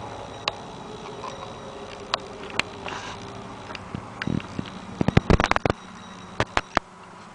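Newborn cashmere goat kid sniffing and nuzzling at its mother's udder while seeking to nurse, with straw rustling. A quick run of sharp clicks and crackles comes about five seconds in, and a few more near the end.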